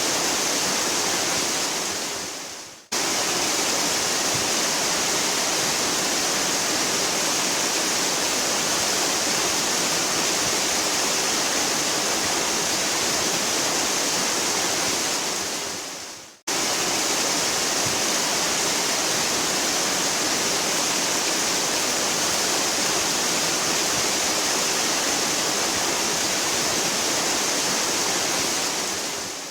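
Waterfall rushing steadily, a dense hiss strongest in the high range. Twice, about 13 seconds apart, it fades away over about a second and snaps straight back in, and it fades once more at the very end.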